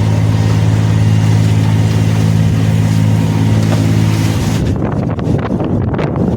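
A sailboat's auxiliary engine running steadily under load while motor sailing into a strong headwind, with wind and sea noise over it. About four and a half seconds in, the engine sound cuts off, leaving gusty wind buffeting the microphone.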